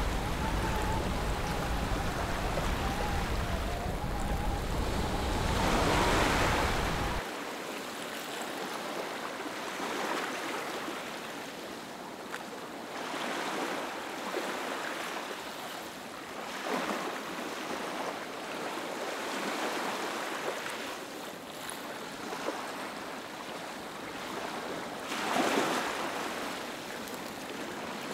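Small waves lapping and washing over shallow water on a flat sandy beach, swelling every few seconds, with a louder wash about six seconds in and another near the end. A low rumble underneath stops abruptly about seven seconds in.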